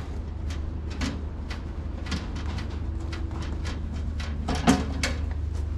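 Irregular metallic clicks and knocks from hands and tools working on a tractor's engine and hood panels, with one louder knock late on, over a steady low rumble.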